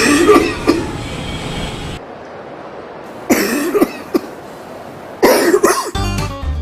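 Coughing poster's loudspeaker playing coughing fits: three bouts of harsh, repeated coughs a few seconds apart, to show what second-hand smoke does to a nonsmoker.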